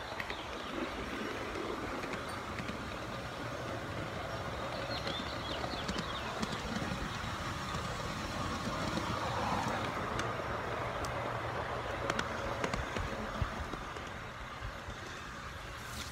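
Garden-scale model train running along its track: a steady rolling hum, with a few sharp clicks in the second half.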